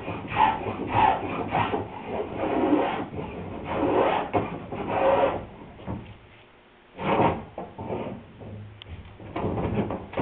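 Small hand plane shaving a wooden boat rail in a series of short strokes, roughing out the rail's bevel to fit the hull. The strokes stop for about a second a little past halfway, then resume.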